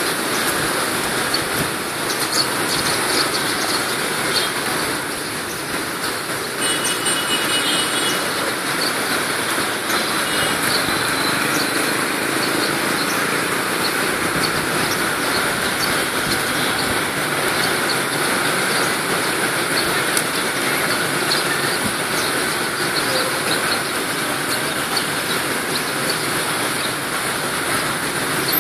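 Steady noise of street traffic, with a few faint ticks and a brief high chirping sound about a quarter of the way in.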